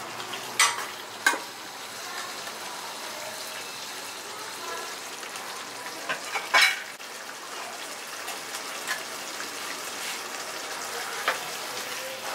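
Potato and cauliflower in thick masala sizzling in a kadhai while a metal ladle stirs it. Sharp clinks of the ladle against the pan stand out twice in the first second and a half, twice around six seconds in, and once near the end.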